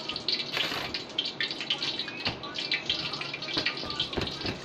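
Hands working soft bun dough on a metal worktable: irregular soft taps, rubbing and handling noises, with a few firmer knocks on the table near the end.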